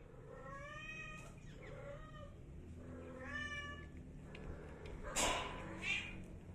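A cat meowing three times in drawn-out calls, followed near the end by two short, louder bursts of noise.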